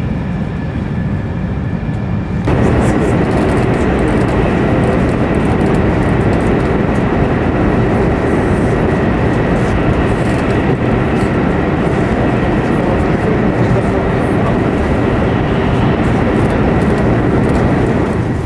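Running noise inside a 300 series Shinkansen car at speed: a dense rumble and rush with a thin, steady high tone. It jumps sharply louder about two and a half seconds in and eases back at the very end.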